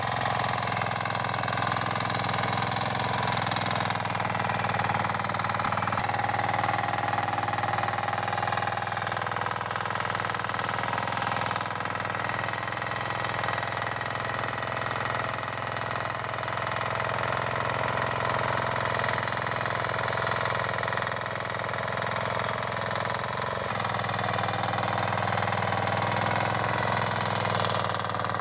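Kisan Kraft KK-IC-406D power weeder's single-cylinder diesel engine running steadily under load while its rotary tines churn loose soil.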